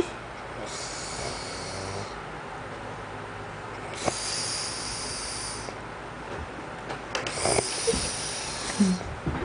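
A man snoring in his sleep: three long, noisy snores about three seconds apart.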